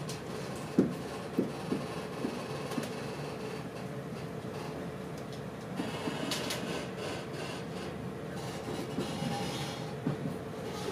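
Interior of an InterCity 125 (HST) passenger coach moving off at low speed: a steady running rumble with a thin steady hum under it. The wheels knock over the track several times in the first few seconds, roughly half a second apart, with a few more knocks near the end.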